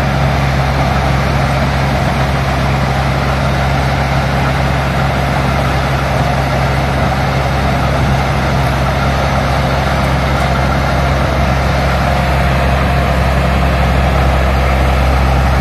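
Tracked rice combine harvester's engine running steadily and loudly as the machine drives into the paddy and starts cutting and threshing rice.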